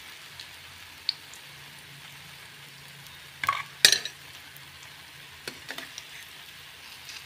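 Potato bondas deep-frying in hot oil, a steady sizzle, broken by a few sharp metallic clinks of a utensil against the pan, loudest two close together about three and a half to four seconds in.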